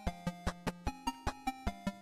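Background music: electronic music with a steady beat of about five hits a second under held synth notes that change pitch every half second or so.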